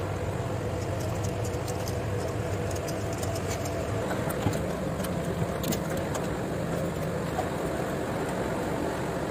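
Overhauled Yuchai diesel engine of a Yutong bus idling steadily, a constant even hum with a few light clicks.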